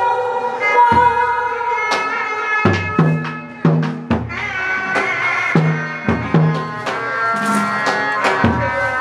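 Hát bội opera orchestra playing an instrumental passage: a low, pitched drum struck in uneven strokes under a melody instrument holding long notes.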